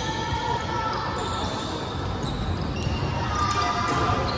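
Basketball being dribbled on an indoor court floor during play, the bounces echoing in a large gym hall.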